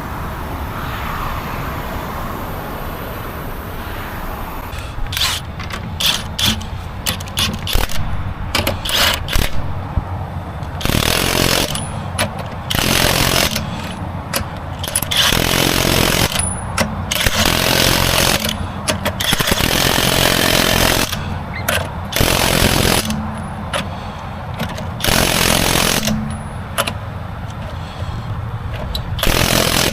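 Impact wrench running in repeated short bursts, a second or so each and several seconds apart, over a steady low rumble, as on lug nuts during a tire change.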